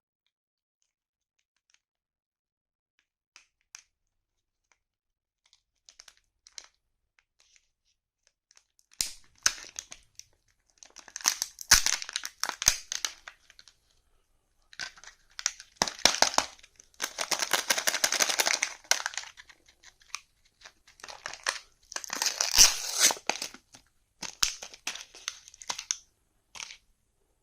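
Candy wrappers being crinkled and torn open by hand, in several bursts of crackling with sharp snaps among them. A few faint ticks come first.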